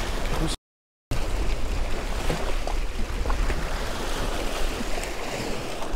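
Sea waves washing and splashing against the granite boulders of a jetty, a steady surf noise. The sound drops out completely for about half a second near the start.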